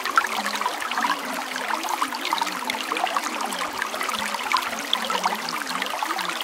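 Running water, like a trickling stream, going on steadily.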